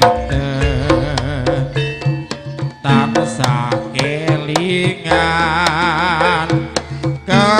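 Live Javanese band music between sung lines of a song: frequent drum strokes under a wavering, held melody line.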